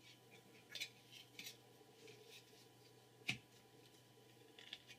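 Near silence with a few faint clicks and taps from the programmer's circuit boards being handled; the sharpest tap comes a little after three seconds in.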